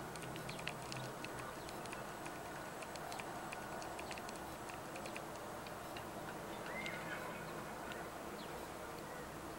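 Steady outdoor hiss with scattered faint ticks in the first few seconds, and one short bird call about seven seconds in.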